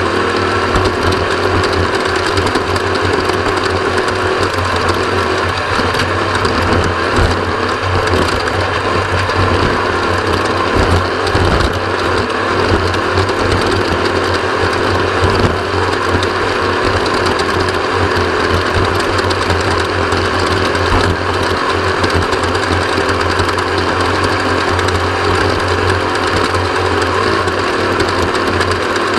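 Off-road race vehicle's engine running hard and steadily at speed during a race lap.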